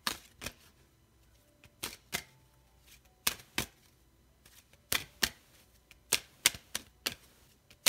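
Tarot cards being shuffled by hand: a series of sharp card slaps and taps, often in quick pairs, at irregular intervals.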